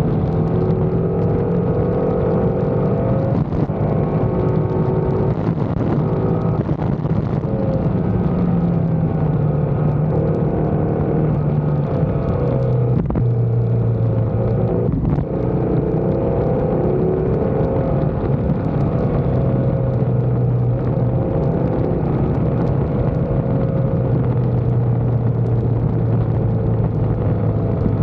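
Motorcycle engine running under way, with wind rushing over the microphone. The engine note shifts in pitch, then settles lower about halfway through and holds there.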